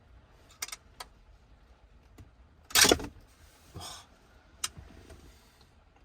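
Hard plastic and metal handling noises from pulling the old car radio head unit out of the dash: a few sharp clicks, one loud rattling clatter a little under halfway through, then a softer scrape and another click.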